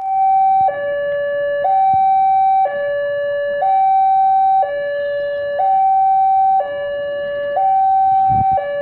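Two-tone electronic warning siren, alternating high and low about once a second, with a few low thumps near the end.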